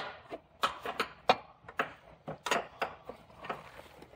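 Hand wrench clicking on an 18 mm seat-mounting bolt under a pickup's rear seat as the bolt is loosened: a string of irregular sharp metallic clicks, about three a second.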